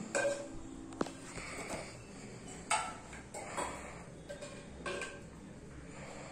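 A steel ladle clinking and scraping against a clay cooking pot and steel serving bowls while curry is served, with one sharp clink about a second in and a few softer knocks after.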